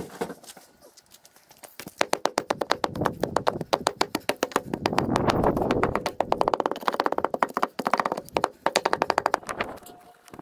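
Rapid, even knocking, about ten strokes a second, running from about two seconds in until near the end, with a rougher scraping noise under it in the middle.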